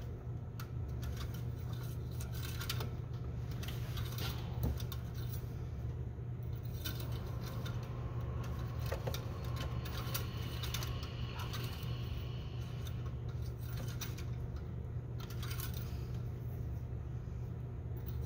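Metal oil dipstick of a 2014 Subaru Impreza clicking and scraping against its tube as it is worked back in, hard to align, with light metallic clinks throughout over a steady low hum.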